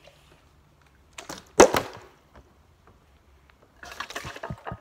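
Plastic water bottle flipped and landing on a hard surface: two quick sharp knocks about a second and a half in, the loudest sound. Near the end, light rustling and small clicks as the bottle is handled.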